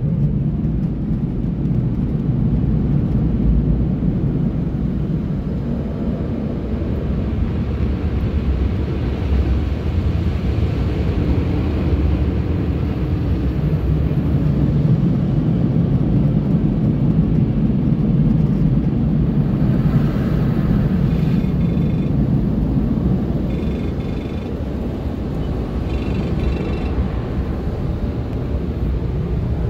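Automatic car wash drying blowers running: a steady, loud rush of air over the truck, heard from inside the cab, with a few short faint high tones between about 20 and 27 seconds in.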